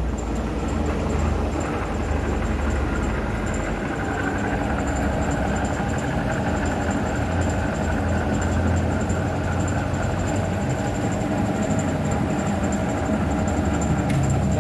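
Metal lathe running steadily: a continuous mechanical drone with a faint, steady high-pitched whine.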